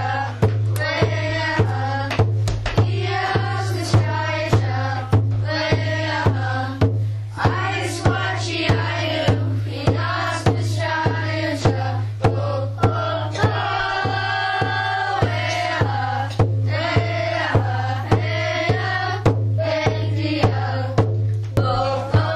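Background music: voices singing a chant over a steady drumbeat, about two beats a second.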